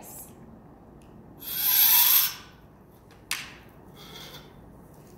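A spoon of water pressed and rubbed against a block of dry ice, giving one loud rasping hiss about a second and a half in, then a sharp click a little after three seconds.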